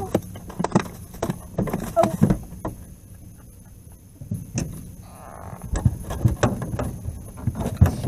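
Irregular knocks and thumps from handling a plastic cooler on a boat as a caught eel goes in and the lid is shut. A sharp knock comes right at the start, then clusters of clatter from about four seconds on.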